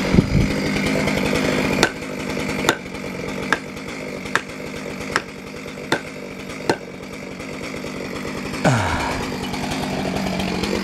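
Two-stroke chainsaw running fast, then dropping to idle about two seconds in; over the idle come seven sharp knocks about 0.8 s apart, a hammer driving felling wedges into the cut to tip the tree. Near the end the saw's engine picks up again.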